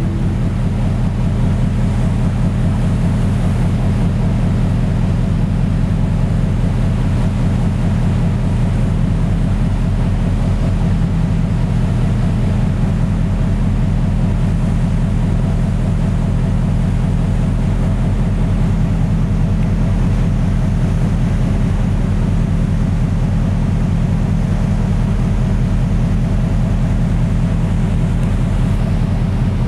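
Large marine diesel engines running steadily at sea: a deep, even drone with a fast pulse, over the wash of the sea.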